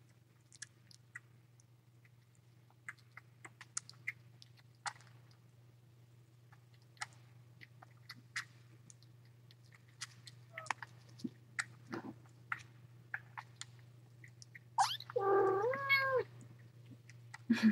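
A cat meows once, a drawn-out call near the end, over a steady low hum and scattered faint ticks and clicks.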